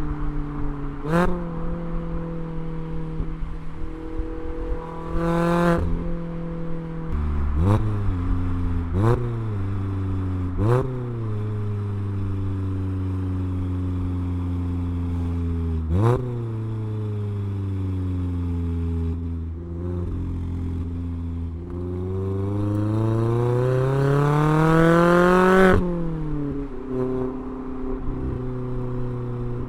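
Mazda MX-5 ND2's 2.0-litre four-cylinder through a Goodwin Racing RoadsterSport Race exhaust, giving a series of quick throttle blips for heel-and-toe downshifts, with the revs falling away between them. Near the end the revs climb steadily for about four seconds, then drop sharply.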